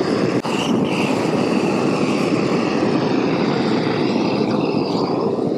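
Hand-held gas roofing torch burning steadily, an even rush of flame, heating old tar and silicone on a metal roof seam to soften it for scraping.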